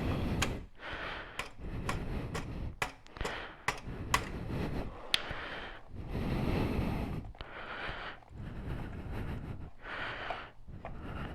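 A man breathing hard in rhythmic heavy breaths while he strains at work, with several sharp metallic clicks of hand tools in the first half.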